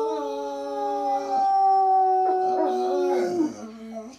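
Dog howling: one long howl held for about three seconds, slowly falling in pitch, that wavers and drops lower before it stops near the end.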